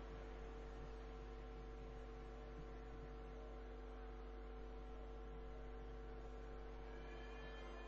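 Steady electrical mains hum with a faint hiss, a flaw in the recording itself. Near the end, faint high steady tones come in.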